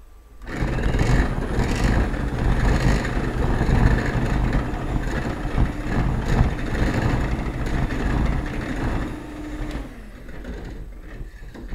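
Electric hand mixer running, its twin wire beaters whisking eggs to a froth in a bowl. It gets loud about half a second in, holds steady, and drops to a quieter run near the end.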